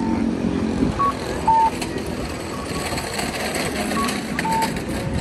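City street ambience of traffic and passers-by, with short electronic beeps in two pitches repeating every few seconds.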